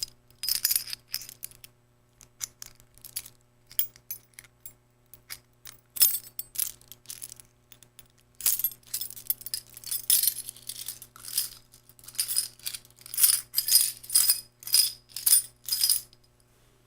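A bunch of metal keys jingling in irregular shakes, bright clinking and ringing, stopping suddenly about a second before the end.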